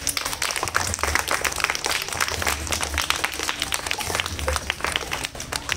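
Audience applauding: many hands clapping in a dense, uneven patter.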